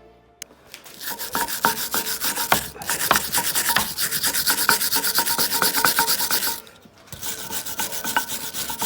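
Wire brush scrubbing a steel brake caliper adapter bracket in quick back-and-forth strokes, cleaning rust and dirt out of the pad-clip tracks. The scrubbing stops briefly about two-thirds of the way through, then starts again.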